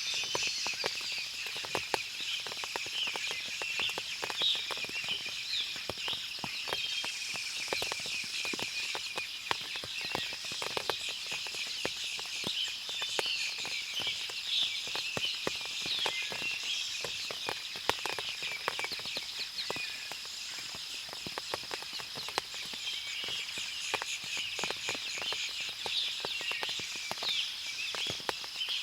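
Forest ambience after rainfall: constant high-pitched chirping of birds and insects, with many small ticks scattered throughout.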